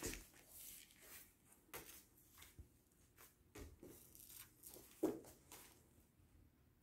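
Faint rustling of clothing and soft scuffs of a body shifting on a wrestling mat during a kettlebell Turkish get-up, with a soft thump about five seconds in as the body lowers back to the mat.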